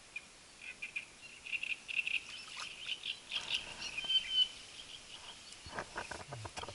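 Small birds chirping in quick series of short calls, with a brief held whistle about four seconds in. A run of clicks comes near the end.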